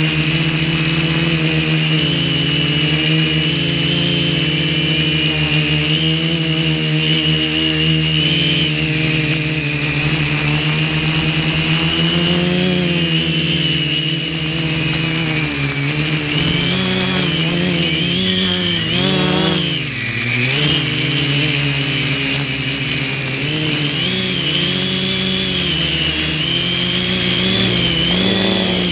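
Quadcopter's four brushless motors (NTM Prop Drive 900KV) spinning 10-inch props, heard from the camera on board: a steady, loud buzz whose pitch wavers up and down with the throttle, dipping briefly about two-thirds of the way through.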